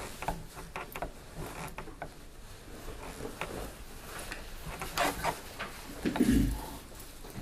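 Scattered small clicks and knocks of things being handled and moved at a table, with a duller, louder thump a little after six seconds in.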